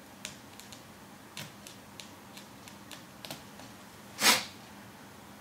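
Light, irregular clicks and ticks of a small screwdriver working the screws that hold down the battery of a Sony VAIO Duo 13 laptop, with one much louder short knock a little over four seconds in.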